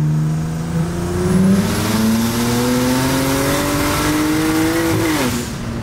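BMW 335i's single-turbo N54 straight-six under full throttle, boost turned up to around 30 psi, heard from inside the cabin. The engine note climbs steadily for about five seconds, then drops sharply near the end as the throttle is lifted.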